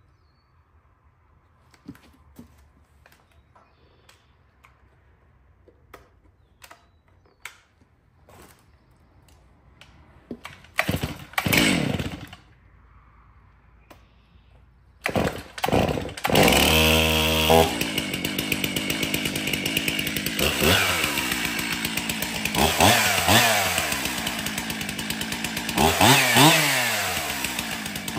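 Stihl MS 362 two-stroke chainsaw being pull-started: a few light handling clicks, then several yanks on the starter cord before it catches about two-thirds of the way in. It then keeps running and is revved up and down several times near the end, starting and running well after its new filters and cleaning.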